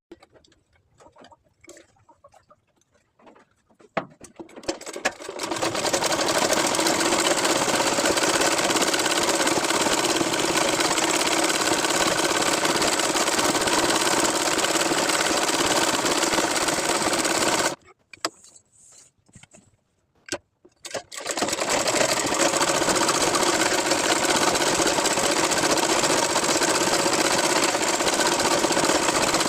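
Sewing machine stitching, running steadily. It starts about five seconds in, stops for about three seconds past the middle, then starts again.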